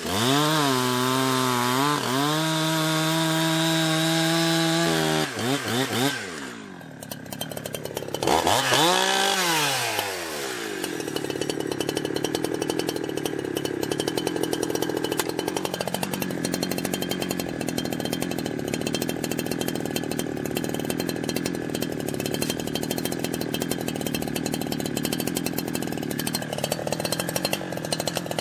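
Holzfforma G372 two-stroke chainsaw running at high revs for about five seconds, its pitch wavering as it cuts, dropping back briefly and revving high again, then settling into a lower, steady engine note with a fast pulse that shifts in pitch twice.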